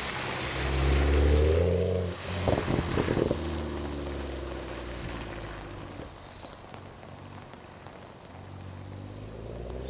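BMW 1 Series hatchback's engine revving as it pulls away, loudest a second or so in, with a quick run of crackles just after and a steadier note as it drives off, rising again near the end. Tyres hiss through standing water on the wet road.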